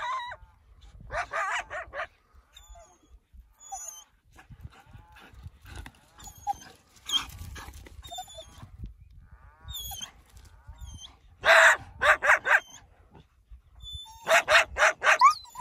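A dog barking in short runs of sharp barks. There are a few about a second in, four close together around the twelve-second mark, and a quick string of about six near the end, which are the loudest. Fainter high, thin calls come in the gaps.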